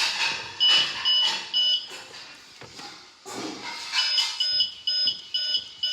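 Toy washing machine's electronic beeper sounding a series of short high beeps in two runs, a few about a second in and more from about four seconds in, with clattering handling noise between.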